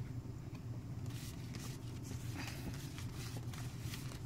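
Light rustling and faint taps of trading cards being moved and stacked by hand, over a steady low hum.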